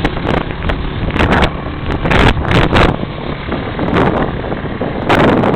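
Wind buffeting the microphone in repeated gusts over a steady low engine drone.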